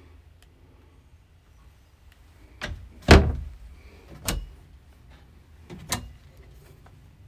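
Wooden cabinet doors being swung open and shut: a handful of knocks and thuds, the loudest about three seconds in.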